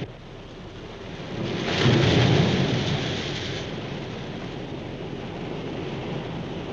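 Sea surf: a wave breaks with a low rushing swell that is loudest about two seconds in, then settles into a steady wash of surf.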